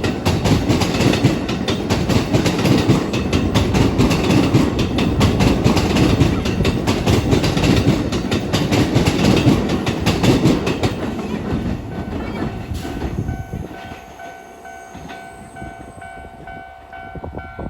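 An electric commuter train passing over a level crossing, its wheels clattering in a rapid run over the rail joints and crossing, then fading away about twelve seconds in. After it has passed, the crossing's warning alarm is left ringing with a steady tone until near the end.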